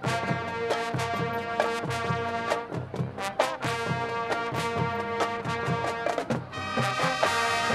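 High school marching band playing: brass holding chords over regular drum strokes, with the brass coming in brighter and fuller near the end.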